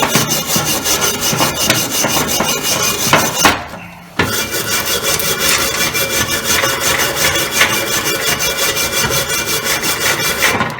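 Hand wire brush scrubbing weld beads on steel plate in rapid back-and-forth strokes, cleaning off the slag. The brushing breaks off briefly about four seconds in, then resumes.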